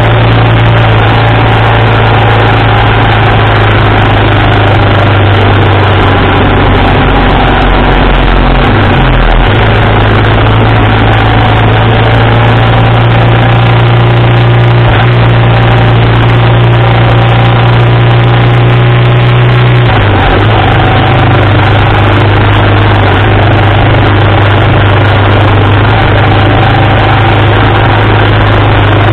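1987 BMW R80RT's air-cooled boxer twin engine running loud and close on the move, mixed with wind noise. The engine note shifts briefly about nine seconds in and again about twenty seconds in.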